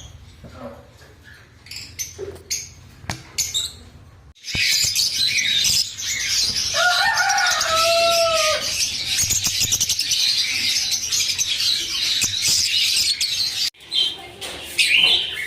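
A flock of lovebirds chattering with dense, shrill chirps. It is sparse for the first few seconds, becomes loud and continuous from about four seconds in, and drops away shortly before the end.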